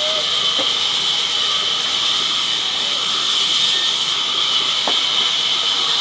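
Sawmill band saw running and ripping banyan planks: a loud, steady high hiss from the blade through the wood, with two light knocks along the way.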